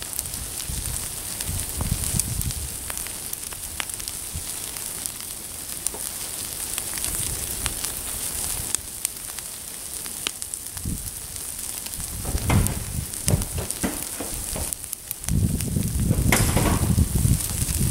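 Wood pyre burning in the open, hissing with frequent sharp crackles and pops. Low rumbling comes in during the last few seconds.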